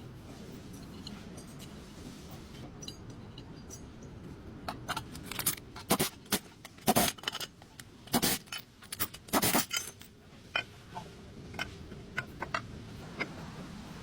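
Metal hand tools and parts clinking, knocking and scraping during work on a car's front wheel hub assembly. The strokes are irregular and come thickest in a cluster of louder clanks in the middle.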